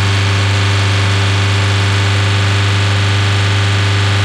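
Volkswagen T5 Transporter's 1.9 TDI four-cylinder diesel engine held steady at about 3000 rpm with no load, running loud and even without any change in speed.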